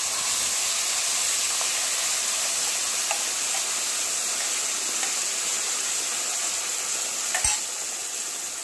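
Ground onion and spice paste going into hot oil in a steel kadhai and frying with a steady sizzle, a spoon scraping it from a steel bowl. One short knock about seven and a half seconds in.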